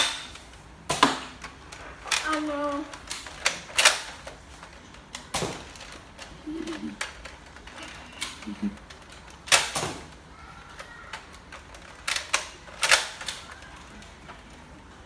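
Sharp plastic clicks and clacks from a toy Nerf blaster being handled, a dozen or so spread irregularly, with a few brief murmurs from a child's voice.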